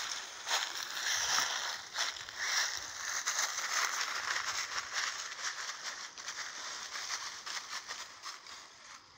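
Footsteps crunching and rustling through dry fallen leaves, dense crackling that dies away near the end.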